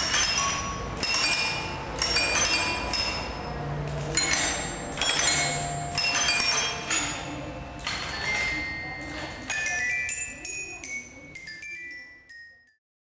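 Metal bars of a pneumatically driven robotic metallophone struck in clusters of bright ringing notes about once a second, with a clack on each stroke; the notes grow sparser and softer near the end and die away.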